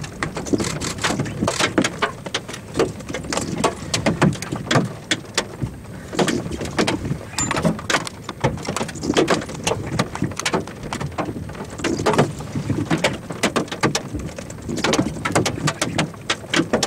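Irregular sharp taps of rain striking the storm-chase vehicle, many each second, over a low wind rumble.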